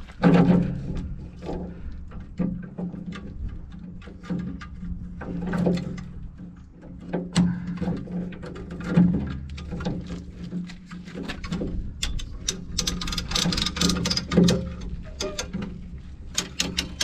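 A steady low engine hum, typical of the Cat 953C track loader's diesel running while a chain pulls on a bent front door panel. Over it come repeated metal clicks, knocks and creaks as the chain and panel take the strain, with a busier stretch of scraping and creaking about twelve seconds in.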